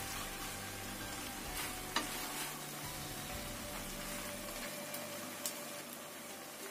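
Wet noodles and vegetables sizzling in a hot nonstick wok while being tossed with a spatula, with a few sharp clicks of the spatula against the pan, the sharpest about two seconds in.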